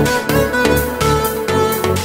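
Background music with a steady beat under held melodic notes.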